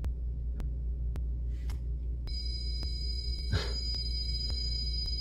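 REM pod proximity alarm going off: a steady high electronic tone, several pitches at once, starts a little over two seconds in and keeps sounding, which the investigator takes for a presence answering his request to come near its antenna. Regular sharp clicks and a low drone run underneath.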